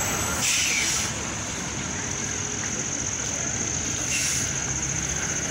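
Steady road and wind noise from a vehicle driving on a highway at night, with a steady high hiss. There are two brief louder whooshes, about half a second and about four seconds in, from traffic passing close by.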